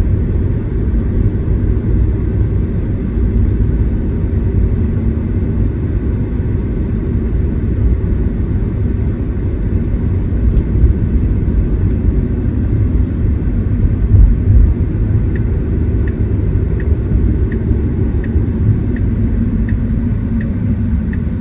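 Steady low road and tyre rumble inside a Tesla electric car's cabin while it drives. From about fifteen seconds in comes a regular soft ticking, roughly one tick every three quarters of a second, from the turn-signal indicator as the car readies for a turn.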